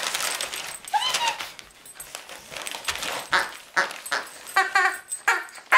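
Siberian husky whining, with one rising-and-falling call about a second in and several short calls in the second half, over the crinkle and rip of wrapping paper being torn off a present.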